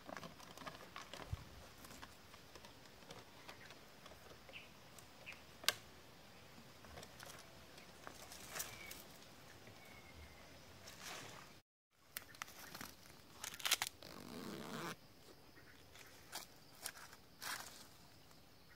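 Faint scattered clicks, rustles and crinkles of hands working fishing line and a plastic bottle, with a brief dropout about twelve seconds in.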